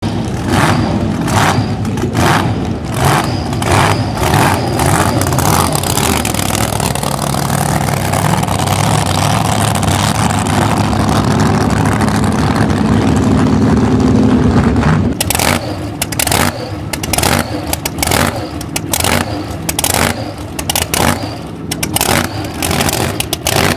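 Supercharged Ford Hemi V8 in a drag-racing altered running through open individual exhaust pipes. A long stretch of steady running has its pitch climbing as the car rolls down the strip. From about two-thirds of the way in it becomes choppy, with short uneven bursts of throttle blips and the lumpy idle of a blown engine.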